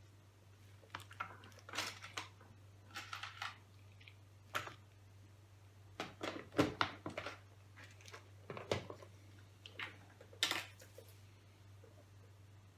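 Irregular clicks and taps of keys being pressed on an Asus X59SR laptop keyboard, about a dozen spread over the stretch, over a steady low hum.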